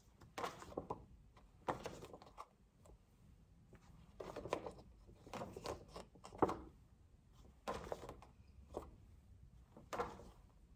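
Faint, scattered thuds and rustles, about eight short ones spread through a quiet pause.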